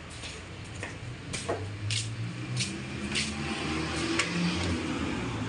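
Several sharp metallic clicks and knocks as a spoked motorcycle wheel is handled and set onto a wheel stand, over a low hum.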